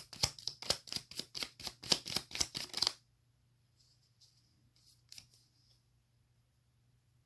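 Tarot cards being shuffled by hand: a quick, even run of card flicks about four or five a second that stops about three seconds in, followed by a few faint card rustles.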